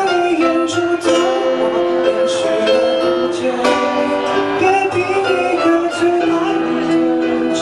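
Live band playing a slow pop ballad through PA speakers: a male voice singing long held lines into a microphone over keyboard and guitar.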